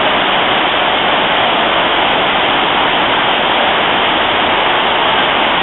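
Loud, steady rush of a waterfall, white water pouring and splashing down over rock ledges close by.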